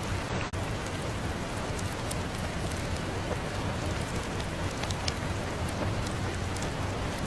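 Steady rain falling, an even hiss dotted with scattered sharp ticks, with a brief dip in the sound about half a second in.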